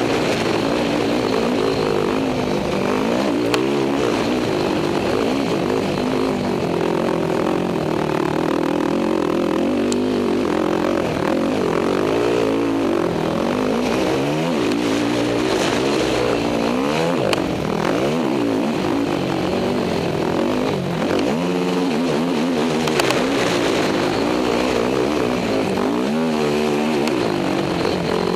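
Race quad (ATV) engine heard on board at racing speed, its revs rising and falling over and over as the rider accelerates and backs off through the corners, over a steady rush of wind and track noise.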